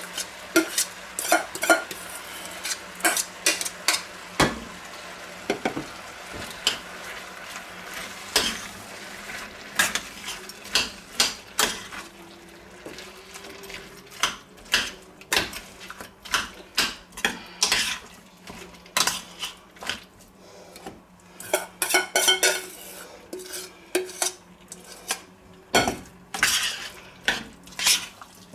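A spoon scraping and clinking irregularly against a stainless-steel bowl and pot as spinach is scraped in and stirred, over a faint sizzle from the pot.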